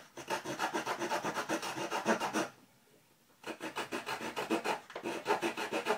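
Small saw blade of a Victorinox Farmer pocket knife sawing a notch into soft wood in quick, short back-and-forth strokes, several a second. It pauses for about a second in the middle, then carries on.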